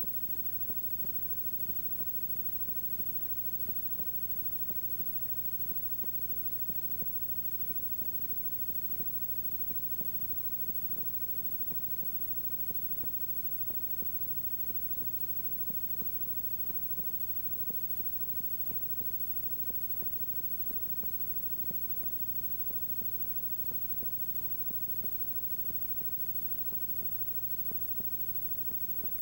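Steady electrical hum and hiss with faint ticks, and no game sound over it: noise from an old videotape transfer.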